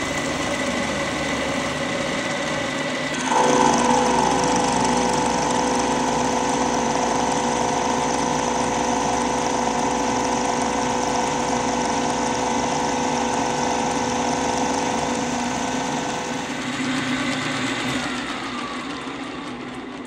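Bridgeport vertical milling machine roughing a slot in a metal block with a 1-inch roughing end mill under flood cutting oil: a steady cutting and spindle drone with several steady whining tones. About three seconds in it grows louder as more tones join, and near the end it eases off as one whine falls in pitch.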